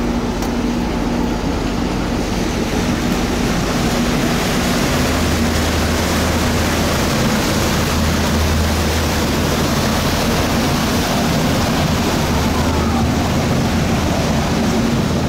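Vaporetto waterbus's diesel engine running steadily under way, with a steady rush of water. The low engine hum grows stronger about five seconds in.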